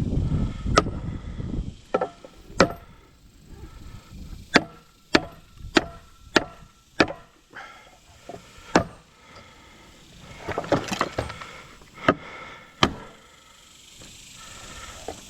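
Repeated hammer blows on the metal parts of a pool pump motor being knocked free of its pump housing: about a dozen sharp strikes, each with a short metallic ring, several coming in a quick run about half a second apart. About ten seconds in there is a stretch of rattling and scraping.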